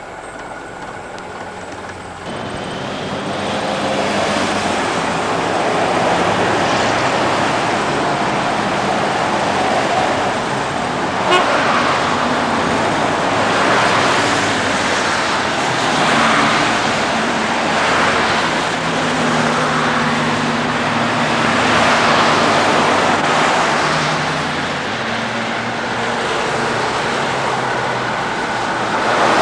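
Street traffic noise with a B-class articulated tram approaching on street tracks: a steady mix of engine hum and road and wheel noise that grows louder about two seconds in.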